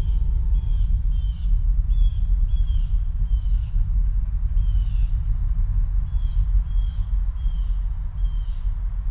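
A bird repeating a short falling chirp about twice a second over a steady deep rumble. The rumble is louder than the chirps.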